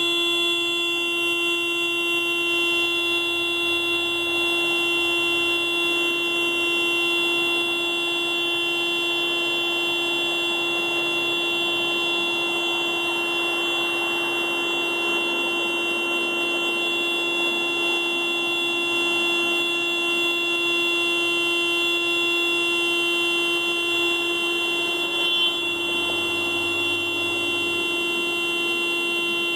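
Car alarm sounding the car's horn in one steady, unbroken blare at a fixed pitch.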